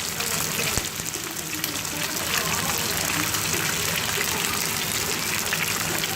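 Marinated chicken pieces frying in hot oil in a pan: a steady, dense sizzle and crackle.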